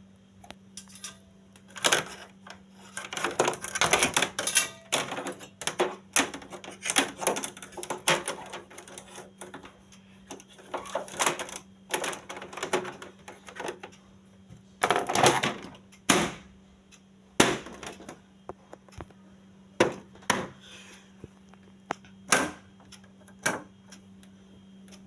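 Irregular clicks, knocks and scraping of objects being handled, over a faint steady low hum.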